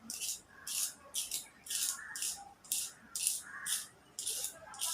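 A pencil being turned in a pencil sharpener: short, high-pitched scraping strokes repeating evenly about twice a second as the blade shaves the wood.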